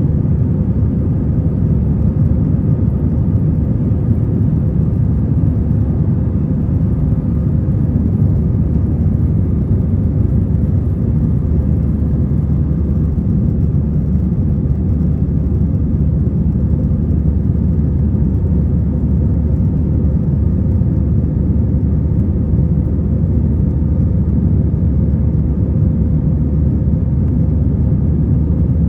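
Steady, loud jet engine and airflow rumble heard inside the cabin of an Airbus A321 in flight, with a faint steady hum on top.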